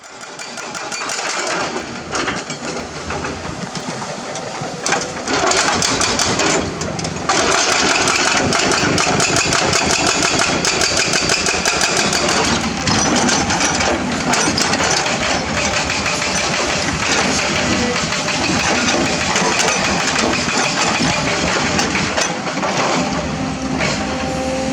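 Hydraulic excavator working, its diesel engine running with many clicks and knocks over it. The sound builds up over the first few seconds.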